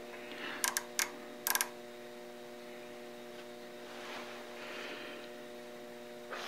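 Micrometer ratchet clicking a few times, the last a quick run of clicks, as it closes on a turned steel shaft to take a diameter reading. A steady hum underneath.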